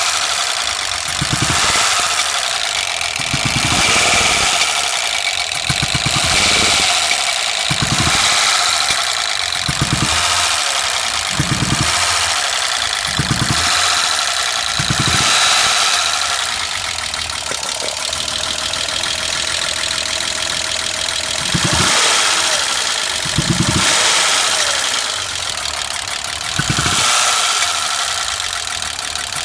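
BMW M20B20 2.0-litre straight-six running rough at idle, with distinct popping from the exhaust manifold and a low thud roughly every two seconds. The mechanic reads this running as a valve fault and thinks a valve was probably struck when a rocker arm broke.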